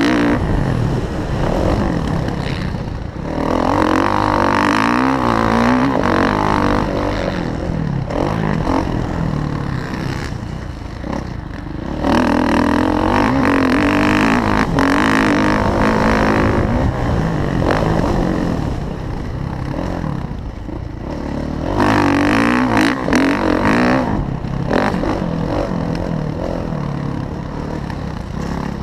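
Kawasaki KX450F four-stroke single-cylinder motocross engine revving up and down under throttle, with loud bursts of throttle a few seconds apart and quieter stretches off the throttle in between.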